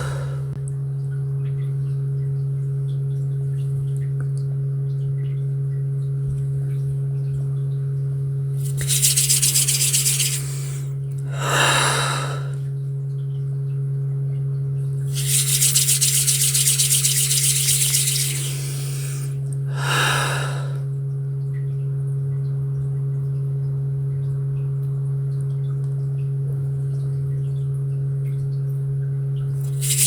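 A steady low sine-like healing tone hums throughout, with a faint higher tone above it. Twice, hands rub together in bursts of dry hissing, the second lasting a few seconds, and two soft breaths blow in between.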